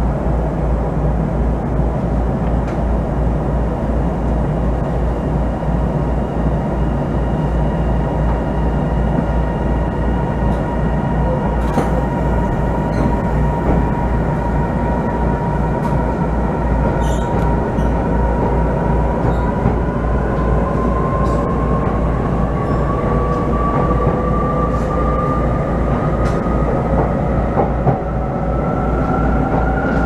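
Onboard sound of a local train pulling away from a station and accelerating: a steady running rumble, with a whine that rises in pitch over the last ten seconds or so as it gathers speed.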